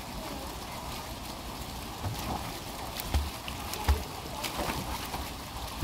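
Water splashing: a fountain jet spraying steadily while a Boston terrier thrashes and splashes in the basin around it. A couple of dull low thumps stand out about three and four seconds in.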